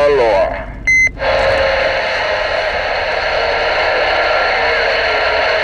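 CB radio receiver between transmissions: a short electronic beep about a second in, then steady static hiss from the speaker.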